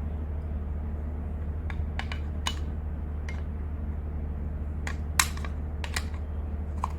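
Small plastic parts of a car seat-belt assembly being handled and pressed into place, giving scattered short clicks and taps, the sharpest about five seconds in, over a steady low hum.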